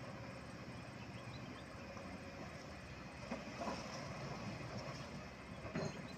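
Kobelco SK200-10 hydraulic excavator's diesel engine running steadily as it works the boom and bucket, with a few knocks about three and a half seconds in and again near the end.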